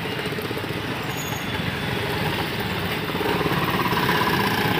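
Street traffic: auto-rickshaw and motorcycle engines running, getting louder about three seconds in as a vehicle passes close.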